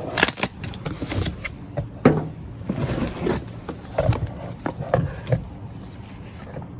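Cardboard box and packaging being opened and handled: irregular knocks, scrapes and rustling.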